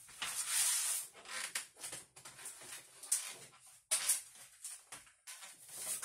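Rustling and shuffling of sheets of cardstock being sorted through, in irregular bursts, with a few sharp knocks around the middle.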